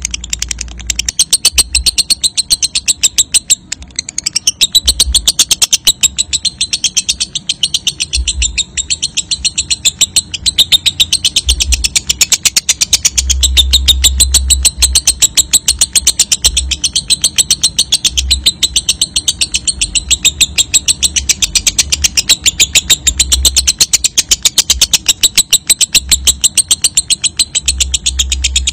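Lovebird giving a long, rapid chattering trill ('ngekek panjang') that runs on without a break, with an intermittent low rumble underneath.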